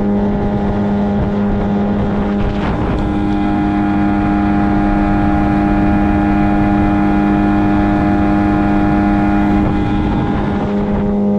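Yamaha 9.9–15 tiller outboard motor running steadily at cruising speed, pushing an aluminium boat along, with an even engine drone.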